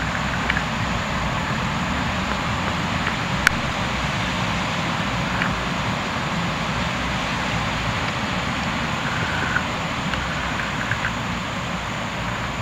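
Steady rushing noise of breaking surf and wind, with a few faint short chirps and ticks.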